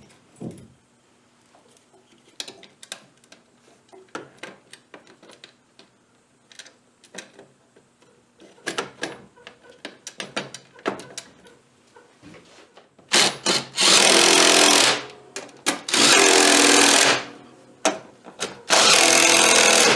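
Scattered light clicks and taps from handling small parts, then a handheld power tool running in three bursts of one to two seconds each in the last third.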